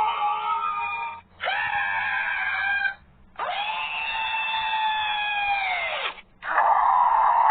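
Godzilla's roar sound effect played over and over: shrill screeching roars with short gaps between them. The longest lasts about two and a half seconds and falls in pitch as it ends.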